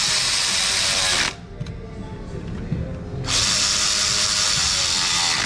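Cordless electric ratchet whirring as it runs down valve cover bolts, in two runs of about two seconds each with a pause of about two seconds between.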